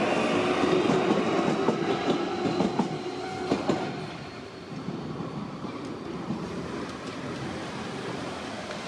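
A train running on the rails, its wheels clacking over the rail joints; it is loudest at first and eases off to a quieter rumble about four seconds in.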